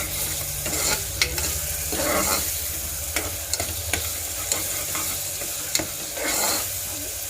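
Onion paste with peppercorns sizzling in hot oil in a pan, stirred and scraped with a spoon that clicks irregularly against the pan. The onion is still frying on its way to browning.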